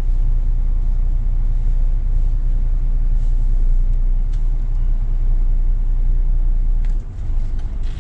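Scania S500 truck's diesel engine running at idle, heard from inside the cab as a steady low rumble, with a few faint clicks. About seven seconds in, the engine note shifts and briefly dips.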